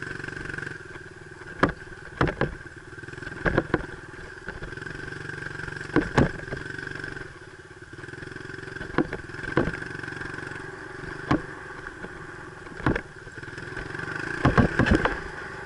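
Dirt bike engine running at a fairly steady pitch while riding a rough dirt trail, with a dozen or so sharp knocks at irregular times, bunching up near the end.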